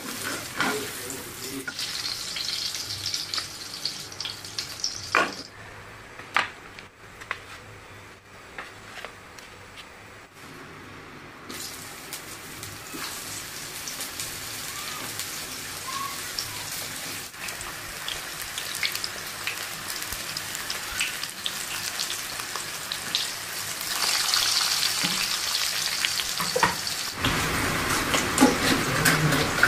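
Hot oil sizzling in a frying pan as salted fish fry, with scattered knocks and scrapes of a plastic spatula against the pan. The sizzle falls away for several seconds, comes back about twelve seconds in as the fish go into the oil, and grows louder near the end.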